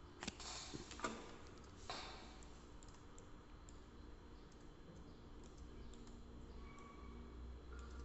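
Laptop keys clicking three times in the first two seconds, then a few fainter light ticks, over a steady low hum.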